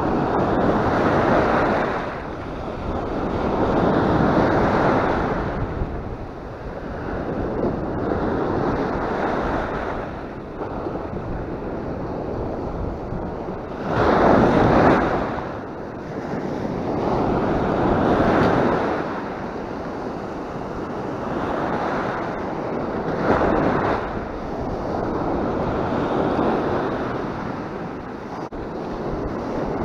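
Sea surf breaking on the shore in repeated waves, each rush of water swelling and fading every three to five seconds, the loudest wave about halfway through.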